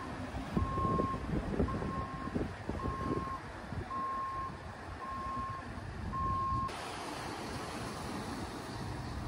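Reversing alarm on a launch tractor backing a boat trailer down a slipway: a single-pitched beep about once a second, six times, stopping about two-thirds of the way through. A steady hiss then takes over, over a low rumble.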